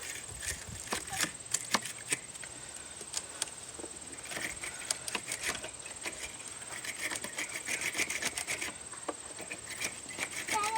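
Irregular scraping and light clicks of a car battery terminal clamp being scrubbed clean on the inside by hand, with a steady high cricket chirr behind it.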